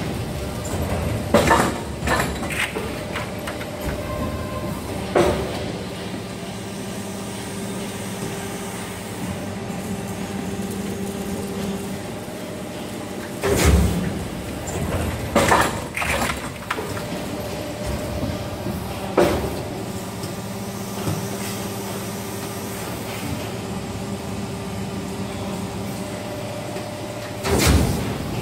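Cap injection moulding machine running through its cycles: a steady machine hum with a held tone that comes and goes. The hum is broken by bursts of clunking and clatter about every 14 seconds, with smaller knocks between them.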